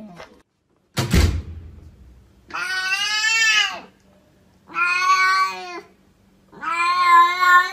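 A sharp knock about a second in, then a domestic cat giving three long, drawn-out meows, the last one the longest.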